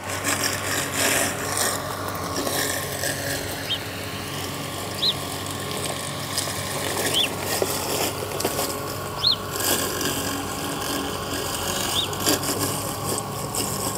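EcoFlow Blade robotic lawn mower running steadily as it mows grass, a mechanical hum of its electric motors. Five short high chirps are spread through it.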